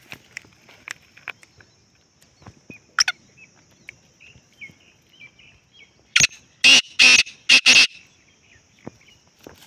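Black francolin calling: a loud group of four harsh, grating notes a little past halfway, over a steady high hiss, with faint chirps and scattered clicks before it.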